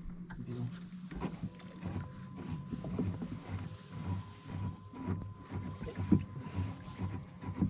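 Hands moving in the water of a boat's livewell, with light knocks against the tub, over a steady low hum. A thin steady whine comes in about a second in.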